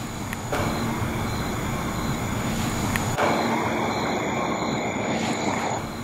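Faint scream buried in boosted background noise, a steady rushing hiss that starts abruptly about half a second in and cuts off just before the end.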